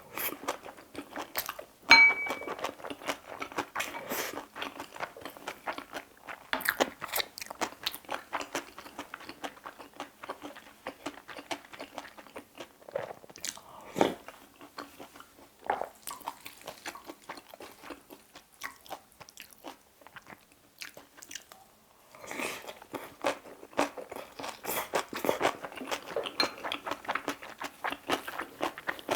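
Close-miked chewing and crunching of a mouthful of bibimbap with crisp vegetable namul such as radish salad and bean sprouts, with a sharp ringing tap about two seconds in and a short pause before the chewing resumes.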